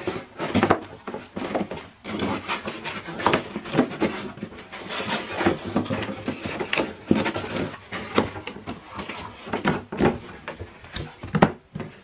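Cardboard boxes and paper packing being handled: irregular rustling, scraping and light knocks as items are pulled out of a shipping box.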